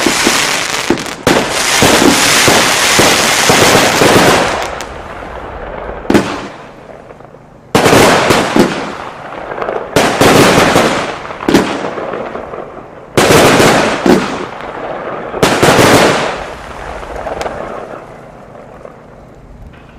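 A 284-shot, 25 mm consumer firework cake firing its last shots. It opens with a rapid volley of overlapping bangs and crackle for about four seconds. Then come about six single shots a second or two apart, each a sudden bang trailing off into a hiss, before the sound dies away near the end.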